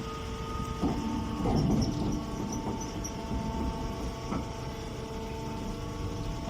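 Round straw baler running, a steady mechanical hum over a low rumble; the pitch of the hum shifts about a second in, with a few brief louder rattles soon after.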